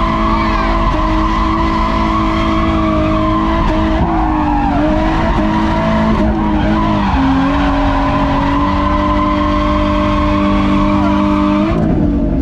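A drift car's engine held at high revs while the car slides with its tyres skidding, heard from inside the cabin. The engine note holds steady, dipping briefly about four seconds in and again about seven seconds in.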